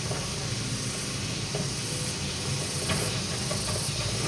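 Sany SY75 hydraulic excavator working, its diesel engine running steadily under load with a constant hiss as the arm and bucket move, and a few light knocks.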